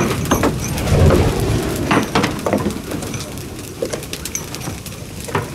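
Large wooden counterweight trebuchet just after a throw: its timbers knock and clatter as the arm and counterweight swing, with a heavy low thud about a second in. Scattered sharp clicks and crackles run through it, easing off toward the end.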